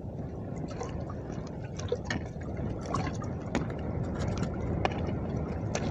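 Choppy wind-driven waves lapping and slapping against a boat's hull, over a steady low rumble of wind and water, with scattered short sharp splashes and ticks.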